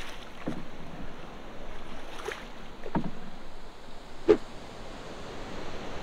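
Steady rush of river water with three short sharp knocks against a boat, the loudest about four seconds in.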